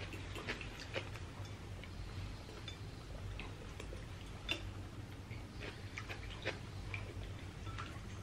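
Close-up eating sounds of noodle soup (thukpa): scattered, irregular small clicks and smacks of chewing and sipping from a spoon, over a steady low hum.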